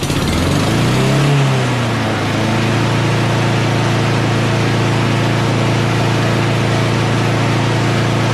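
Honda self-propelled lawn mower's single-cylinder four-stroke engine, just started on one pull. It speeds up over the first second or so, dips briefly, then settles and runs steadily.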